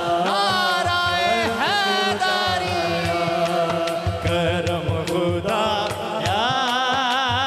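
Hamd, a devotional song praising God, sung by a voice in long held notes that glide and waver, over a steady low beat.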